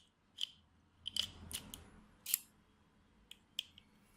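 ABUS Element 290 disc lock and its keys being handled: a scattering of small, sharp metallic clicks and clinks at irregular intervals.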